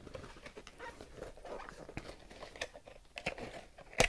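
A perfume box handled close to the microphone: soft rustling and crinkling with many small taps and clicks, and one sharper click about four seconds in.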